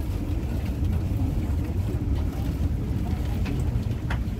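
Ruta 25 minibus under way, heard from inside the passenger cabin: a steady low engine and road rumble with some wind noise, and a few short rattles near the end.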